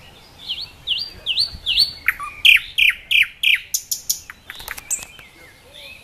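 Nightingale singing one phrase. It starts with four short hooked notes at about three a second, goes on to four louder notes sweeping down in pitch, and ends in a quick run of sharp clicking notes about four seconds in.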